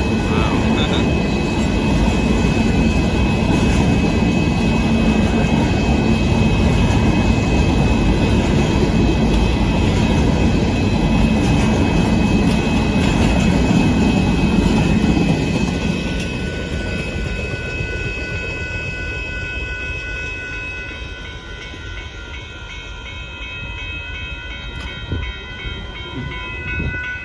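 Union Pacific hopper car train rolling past on the rails, a loud steady rumble of wheels and cars that eases off and fades about two-thirds of the way through.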